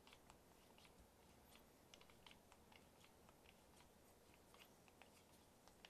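Faint, irregular clicks from a Handpresso hand-pumped espresso maker being pumped up to pressure, over near silence.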